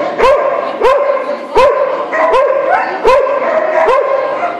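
A dog barking over and over in a steady rhythm, a little faster than one bark a second, loud and echoing slightly in a large hall.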